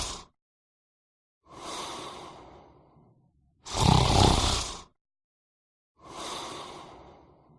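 A person snoring: a loud snore about every four and a half seconds, each followed by a quieter breath that fades away.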